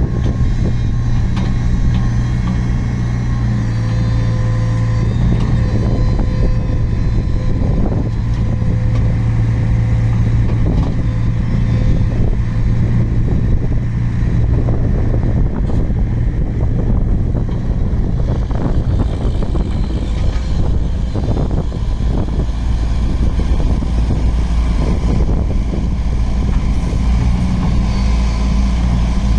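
Komatsu PC95 midi excavator's diesel engine running steadily, with scattered knocks and clanks from the machine.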